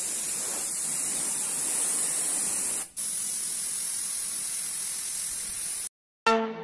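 Compressed-air gravity-feed paint spray gun hissing steadily as it sprays paint onto a steel gate, with a brief break about halfway through. The hiss cuts off a little before the end, and music starts just after.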